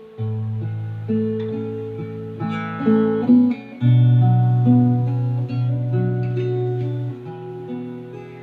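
Instrumental intro of a slow ballad: guitar chords over long, held bass notes, with no singing yet.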